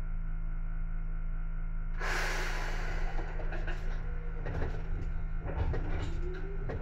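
Seibu 2000 series electric train standing with its equipment humming. About two seconds in there is a sudden loud hiss of compressed air, followed by clunks and knocks. Near the end a rising whine starts as the traction motors begin to move the train off.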